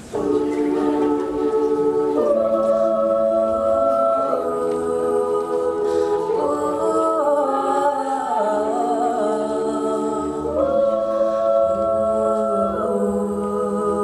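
All-female a cappella group singing unaccompanied, sustained wordless chords in close harmony. The voices enter together at once, and the chord shifts every couple of seconds.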